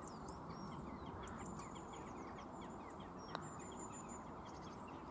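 Small birds chirping repeatedly over faint outdoor background noise, with a single sharp click of a putter striking a golf ball a little over three seconds in.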